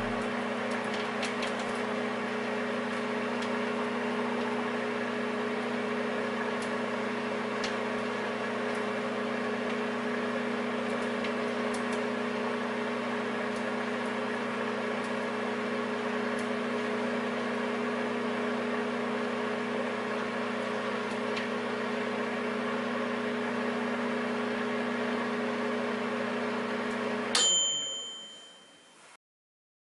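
Microwave oven running with a steady hum and fan noise, then its bell dings once near the end as the heating cycle finishes and the hum stops.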